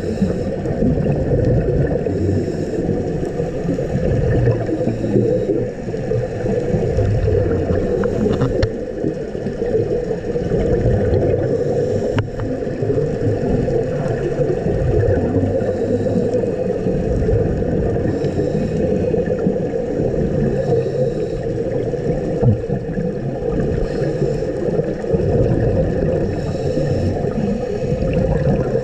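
Underwater sound through a camera's housing: a steady low rumble, with a scuba diver's exhaled bubbles hissing and gurgling every few seconds.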